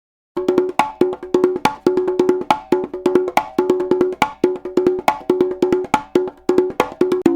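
Conga drums playing a looped rhythm, starting about a third of a second in. Quick hand strikes on a mid-pitched drum make a short pattern that repeats a little more often than once a second.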